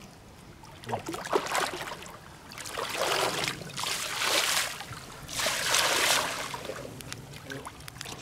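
Water splashing and sloshing in four or five surges, each about a second long, as a big carp is handled in the lake margin and let go.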